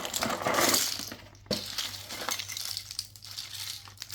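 Small plastic toys being handled and sorted: rustling and clinking, densest in the first second, with a sharp click about a second and a half in, then lighter rustling.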